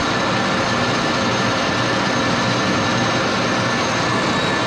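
1941 Axelson engine lathe running with the power feed engaged: a steady whir of motor and gearing, with a few constant whining tones from the gear train.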